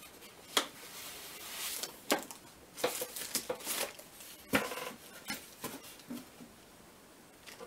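Handling noise: a plastic bag holding a sewing machine's foot pedal and cord rustles and crinkles, with scattered sharp clicks and knocks as the bundle is pulled free of the machine and moved about.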